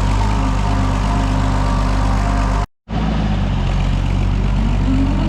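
Oliver 77 tractor's six-cylinder engine running steadily as the tractor is driven through snow, with a brief dropout to silence a little past the middle.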